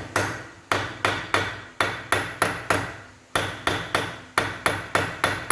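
Hammer blows, about three a second with a short pause midway, driving a new bearing race (cup) into the bearing housing of a Fiat Palio Weekend's rear axle. Each strike is sharp, with a brief metallic ring.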